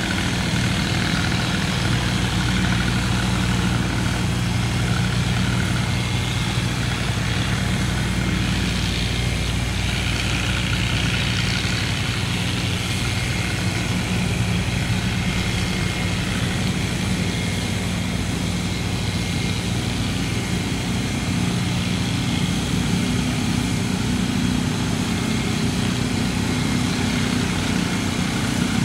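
Boat engine running steadily, a low, even drone with a hiss above it and no change in speed.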